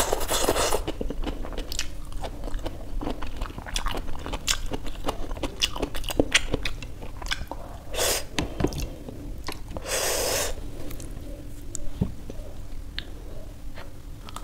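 Close-up eating sounds: Maggi instant noodles slurped in at the start, then chewing and crunching on fried samosa, with many small wet mouth clicks. A few louder noisy bursts stand out, the longest about ten seconds in.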